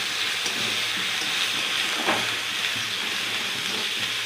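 Spice paste sizzling steadily in hot oil in a metal kadai while being stirred and fried down, with a metal spatula scraping the pan briefly about two seconds in.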